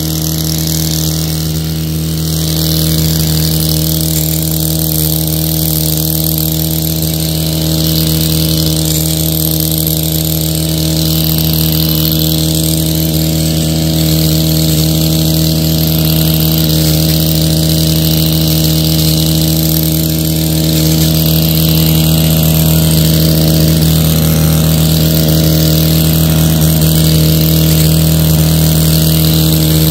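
Stihl KM 131 R KombiEngine's 4-MIX engine running steadily at high speed, driving an FH-KM hedge-trimmer attachment through brush.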